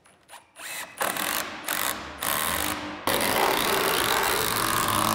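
Cordless drill/driver driving a screw into a wooden girder beam: a few short trigger bursts, then a long continuous run from about three seconds in as the screw pulls the framing tight.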